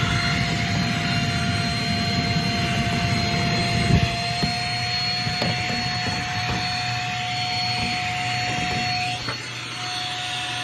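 Vacuum cleaner running with a steady high whine, its nozzle knocking and scraping now and then, about 4 s in most loudly, as it sucks out the dust packed behind a refrigerator's panel, dust that is the likely reason the fridge isn't getting cold.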